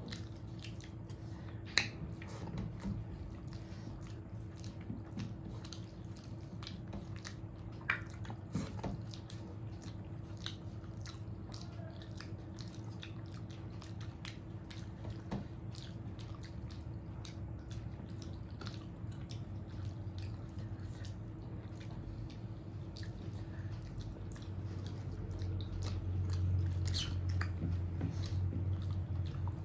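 Close-up mouth sounds of a person eating rice and mutton curry: chewing with small wet clicks and smacks. A steady low hum runs underneath.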